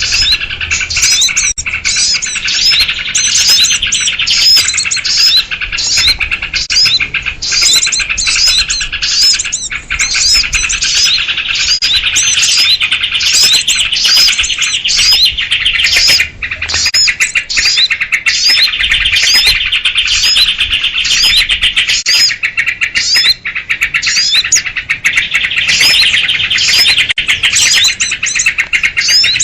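Dense, nonstop chorus of rowdy small songbirds, sooty-headed bulbuls among them, chirping and chattering over one another in quick repeated calls several times a second. It is a bird-lure recording meant to draw in small birds.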